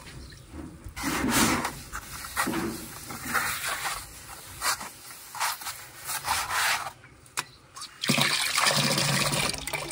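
A wet cloth rubbing and scrubbing the glass of a dirty mirror in irregular strokes, with some splashing of water. The loudest stretch of scrubbing comes near the end.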